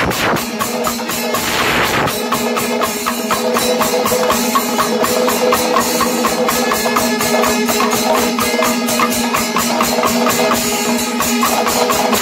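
Panchavadyam temple ensemble playing: a fast, even beat of timila and maddalam drum strokes with ilathalam cymbals, over a steady held tone.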